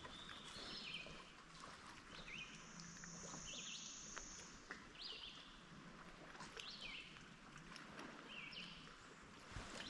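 Faint outdoor ambience of birds chirping, short sweeping calls every second or so, with a thin high buzzing note held for about two seconds a few seconds in. Scattered small clicks and a steady hiss lie underneath.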